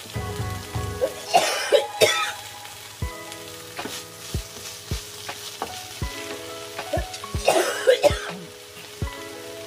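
A woman coughing in two fits, about a second in and again near the end, set off by chili fumes from the pan, over food sizzling as it fries.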